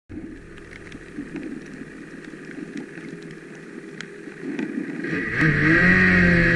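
Ski-Doo snowmobile engine running at low speed with a low, uneven rumble and a few small clicks. About five seconds in the throttle opens: the engine note rises and settles into a much louder steady tone.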